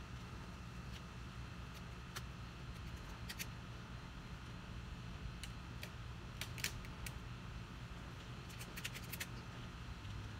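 Faint scattered clicks and ticks from rubber bands being handled and stretched onto a watermelon, with a quick cluster about three seconds in and another near the end, over a low steady background hum.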